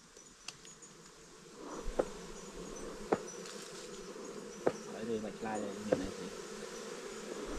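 Bees buzzing en masse, a dense steady hum that swells up about two seconds in, with a few sharp clicks or taps over it.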